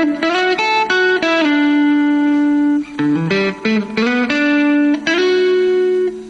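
Electric guitar through a Marshall MG2FX mini amp playing a melodic single-note line. Several notes are held for a second or more, and a few slide or bend up into pitch.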